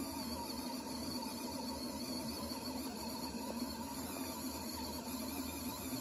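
Mini portable washing machine running its wash cycle: a steady low motor hum as it churns clothes in soapy water.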